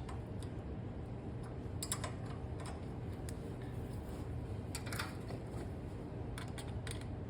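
Scattered light metal clicks and taps of hand tools on the lawn tractor engine's valve rocker while the valve clearance is adjusted, over a steady low hum.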